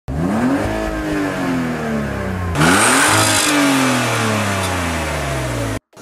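Car engine, a BMW E46 3 Series in park, revved twice: each rev climbs quickly and then falls slowly back, the second a little louder. It cuts off abruptly near the end.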